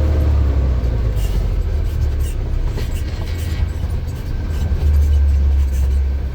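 Heavy diesel earthmoving machinery running with a steady low rumble, growing louder about five seconds in.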